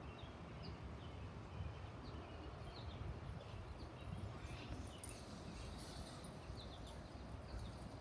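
Small songbirds chirping outdoors: many short, scattered high notes, some sliding, with a few denser chirps in the middle, over a steady low rumble.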